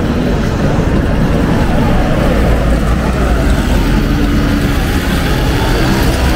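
City street traffic: road vehicles running past with a steady low rumble.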